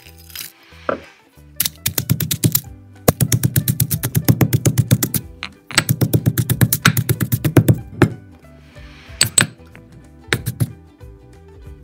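Granite pestle pounding grilled fish in a granite mortar: quick runs of rapid knocks, several a second, broken by short pauses, then a few separate knocks near the end.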